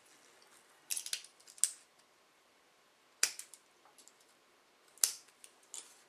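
Scissors snipping the ends off thin aluminium shims cut from a Coke can: four short, sharp snips at uneven intervals, with a few faint ticks of handling between them.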